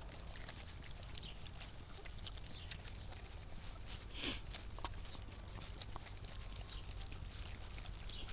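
German shorthaired pointer puppies moving about on grass: faint rustling and scattered small clicks, with one short sliding squeak about four seconds in.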